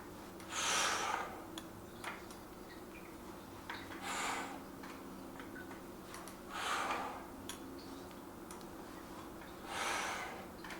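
A man breathing out hard four times, about every three seconds, while lifting weights, each breath a loud rush. Faint scattered ticks run underneath.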